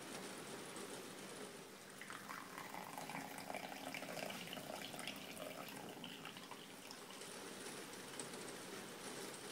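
Hot coffee poured from a stainless-steel coffee pot into a small ceramic cup: a faint, trickling pour that starts about two seconds in and lasts a few seconds.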